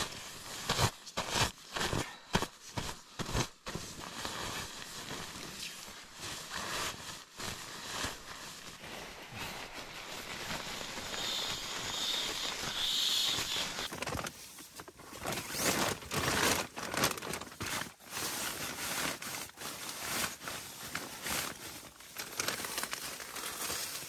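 Rustling and crinkling of nylon gear as camp is packed up inside the tent: a down sleeping bag being compressed in its stuff sack and an inflatable sleeping pad being pressed down. Sharp, irregular crinkles come thickest in the first few seconds, with a steadier rustle through the middle.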